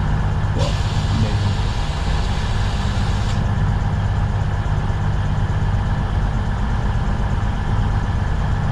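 Stationary train's engine idling with a steady low hum. A hiss sounds over it for about three seconds near the start.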